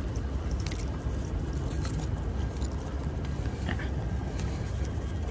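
Small clicks and scrapes of fishing pliers working a hook out of a freshly landed coho salmon, over a steady low background rumble.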